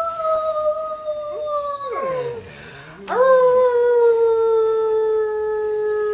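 English setter howling along with a woman's imitation howl: a long drawn-out howl that slides down about two seconds in, then after a short break a second long howl that drifts slowly lower in pitch.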